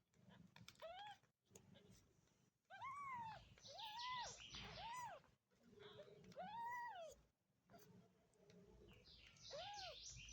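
A cat meowing repeatedly: about six short calls, each rising and then falling in pitch.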